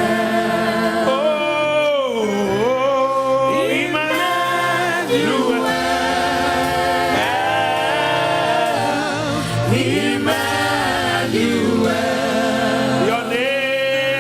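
Gospel worship singing by a group of voices, holding long notes that bend and waver, over steady low accompanying notes.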